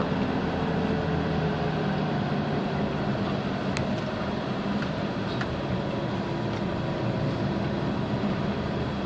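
Steady engine hum and road noise of a car heard from inside its cabin while driving slowly. A single short click comes about four seconds in.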